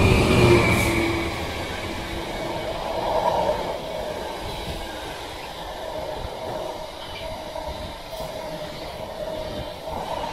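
Freightliner diesel locomotive passing close by at speed, loudest in the first second. It is followed by the steady rumble of loaded container wagons rolling past on the rails.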